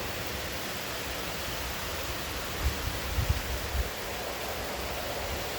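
Heavy rain pouring steadily, with a few brief low thumps about halfway through.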